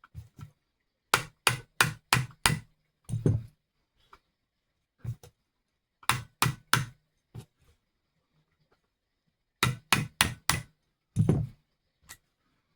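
Sharp metal taps in quick runs of three to five, with a few single duller knocks between, as a small screwdriver is knocked against the pistol's disassembly pin to drive it out of the frame.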